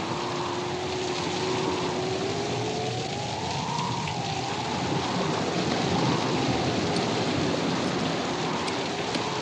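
Film storm soundtrack: a steady rush of heavy rain and breaking surf, with a faint wavering tone drifting slowly up and down above it.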